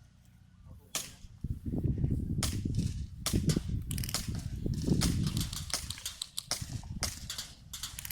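Airsoft guns firing an irregular string of sharp cracks, single shots and quick clusters, during a skirmish game. A low rumble runs underneath for most of it.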